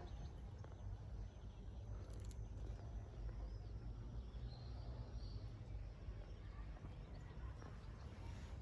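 Outdoor ambience: a steady low rumble with a few faint bird chirps about four to five seconds in.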